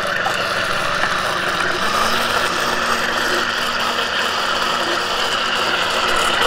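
Several electric countertop blenders running steadily, whirring as they blend fruit smoothies; a lower hum joins about two seconds in.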